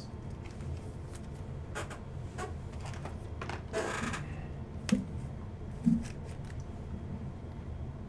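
A trading card being slid into a clear plastic sleeve and top loader: light plastic scuffs and clicks, with one hissy slide of about half a second a little under four seconds in, and two small taps about a second apart after it.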